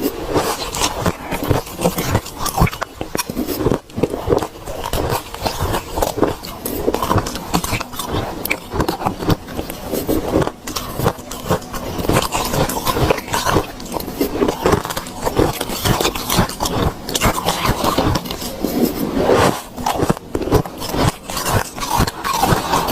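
A person biting and chewing ice, with dense, irregular crunching and crackling throughout.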